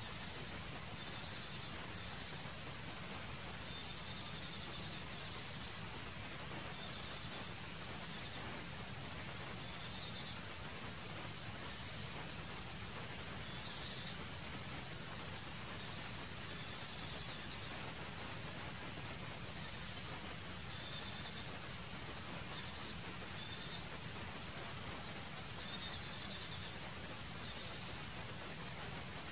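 Insects: a steady, high-pitched drone with short bursts of rapid, higher chirping that recur every second or two.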